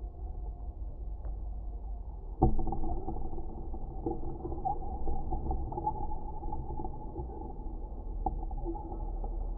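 Dark ambient sound-design drone evoking the sunken Titanic: a muffled low rumble under wavering, moaning tones. A sharp hit about two and a half seconds in makes it suddenly louder.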